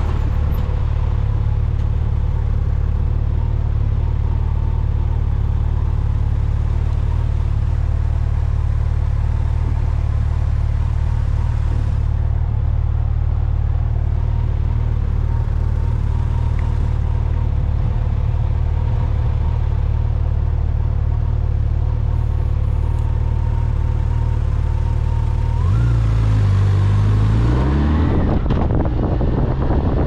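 A vehicle engine drones steadily under way with road noise. Near the end the engine note rises as it picks up speed.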